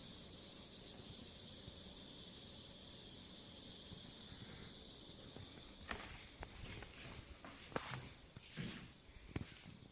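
A faint, steady high hiss; from about six seconds in, scattered soft rustles and light knocks.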